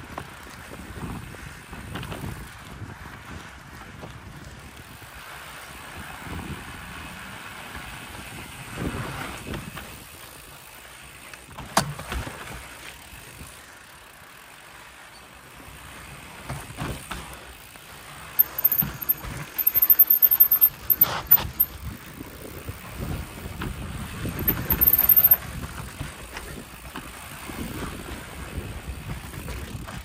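Mountain bike riding a rough dirt trail: steady tyre rumble and wind on the microphone, with sharp knocks and rattles from the bike over rocks. The clattering is densest and loudest a little past the middle.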